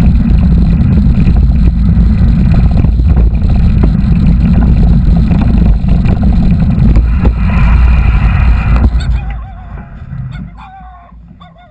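Loud low rumble of wind and riding noise on a mountain bike's camera, which dies away about nine seconds in.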